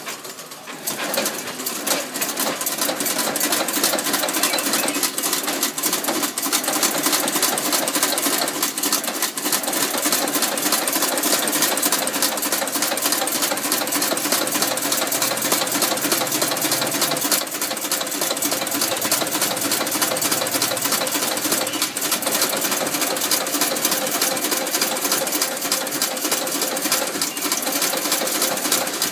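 Automatic incense-stick making machine running: a fast, steady mechanical clatter as it feeds bamboo sticks and presses incense paste onto them, starting up about a second in.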